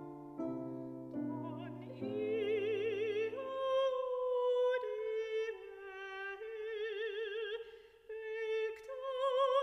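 Steinway grand piano chords, then a soprano voice enters about two seconds in, singing a slow carol melody in long held notes with wide vibrato, in classical style, over the piano.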